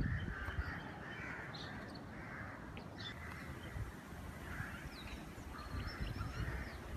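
Birds calling repeatedly outdoors: harsh, cawing calls recurring every second or so, with a few thin high chirps, over a low rumble.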